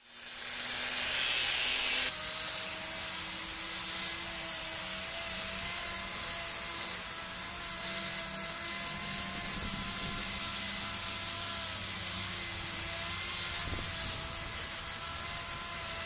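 Angle grinder with a nylon abrasive rust-removal disc scrubbing rust off a steel square tube: a steady motor whine over a rough rubbing hiss. The sound comes in at the start, and the whine's tone changes about two seconds in.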